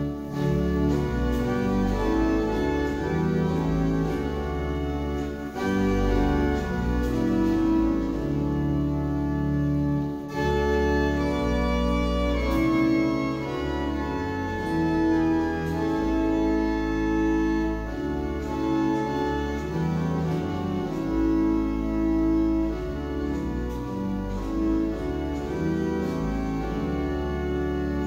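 Organ playing a hymn tune in sustained chords over a moving bass line, with brief breaks at phrase ends.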